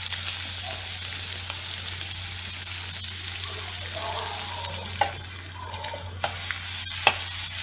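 Chopped onions sizzling in hot oil in a kadai as they are stirred, with a few sharp clicks of the spoon against the pan in the second half.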